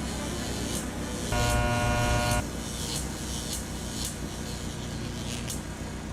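Cartoon vehicle sound effects: a steady engine hum with one horn honk about a second in, lasting about a second, over a light regular ticking about twice a second.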